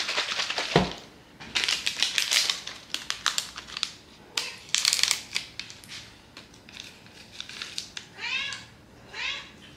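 Crinkling and rustling for the first few seconds, then a cat meowing twice near the end.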